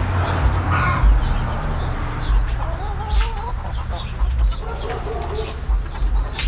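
Domestic hens clucking in short, wavering calls as they crowd a compost pile, with a few sharp knocks from a digging fork working the compost.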